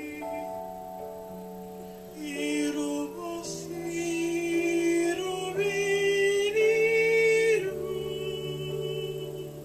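Worship music: a wordless sung line over sustained instrumental chords, with plucked-string notes. The singing grows louder in the middle and drops back near the end.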